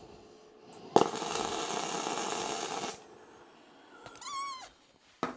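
Electric arc welder welding a new steel spring perch onto a motorcycle seat pan: a sudden strike about a second in, then about two seconds of steady arc noise that cuts off abruptly. The weld throws a lot of spatter and misses its mark.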